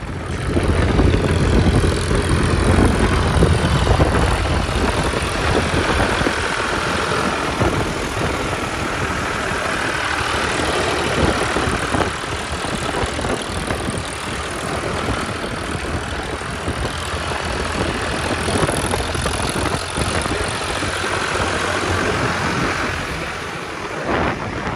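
Restored Ford 3600 tractor's three-cylinder diesel engine running steadily as the tractor drives along the road.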